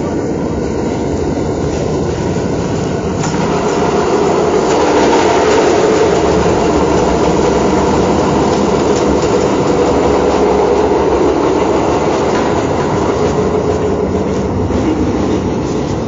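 A train running: a steady rattling rush of noise that grows a little louder about four seconds in and then holds.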